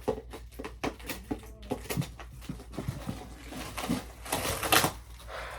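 Plastic packaging rustling and clicking as it is handled and opened, with a loud crinkling tear about four and a half seconds in.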